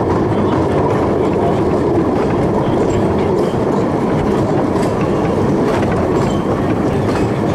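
Open four-wheeled narrow-gauge passenger carriage running along the track: a steady rumble and rattle of wheels on rails, with occasional clicks of the rail joints.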